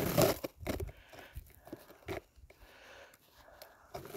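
Footsteps crunching in crusted snow, with brushing through dry grass and twigs. Most of it comes in the first second, then only a few soft crunches.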